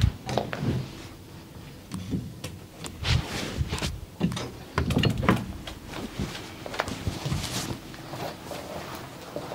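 Hands working over a person's body during a massage: irregular soft thuds mixed with short rubbing and scratching noises.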